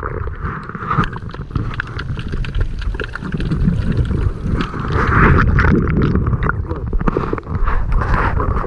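Sea water sloshing, gurgling and splashing around a camera held at and just below the surface, with dense crackling and knocks of water against the housing.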